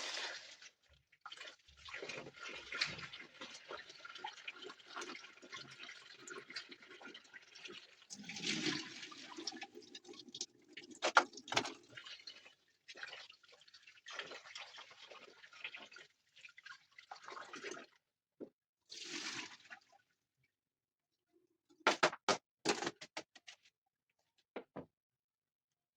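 Water being poured and splashed in irregular spells, with a few sharp knocks near the end.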